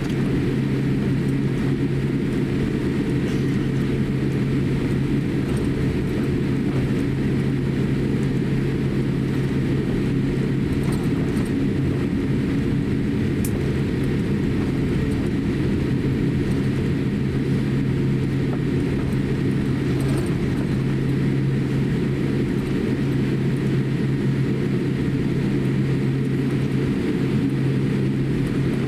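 Steady low cabin drone inside a Boeing 787-8 airliner taxiing, its GEnx-1B engines at low taxi power. There is an even low hum with a steady deeper tone under it, and no change in power.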